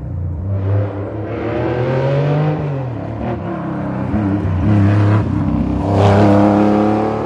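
A historic rally car's engine revving hard under acceleration on a special stage. Its pitch climbs, drops sharply about two and a half seconds in, then climbs again and is loudest about six seconds in, as it works through the gears.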